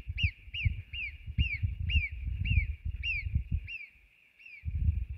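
Alpine marmot alarm whistles: a run of about ten short, high, falling notes, two or three a second and spacing out slightly, the call marmots give when a ground predator such as a fox is about. Low thuds sound underneath.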